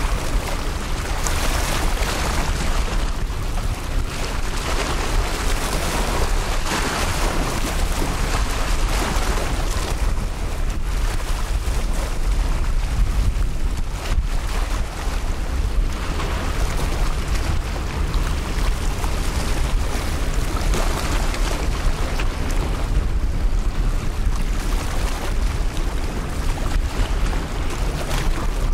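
Strong wind buffeting the microphone: a heavy low rumble with rushing noise that swells and eases every few seconds.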